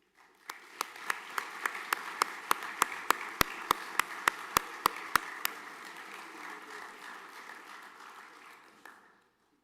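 An assembly audience applauding. One clapper close to the microphone stands out with sharp, even claps about three a second through the first half. The applause fades out near the end.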